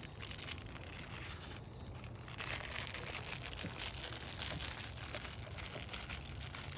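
Plastic packaging crinkling and rustling as it is handled, with fine crackly ticks throughout.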